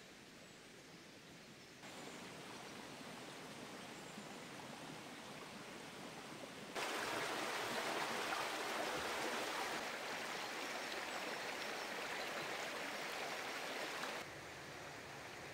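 Stream water rushing steadily over rocks. It grows louder about two seconds in and again about seven seconds in, when it is at its loudest, then drops back down near the end.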